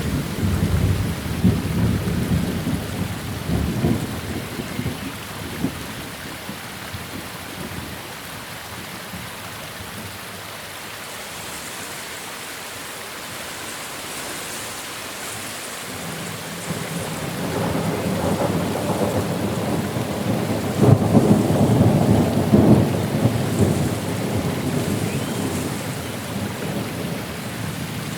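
Steady rain with rolling thunder: one long rumble dying away over the first few seconds, and another building a little past the middle, loudest a few seconds later, then fading.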